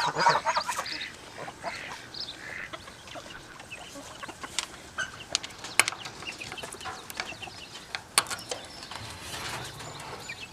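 Chickens clucking in short, scattered calls, with a few sharp clicks in between.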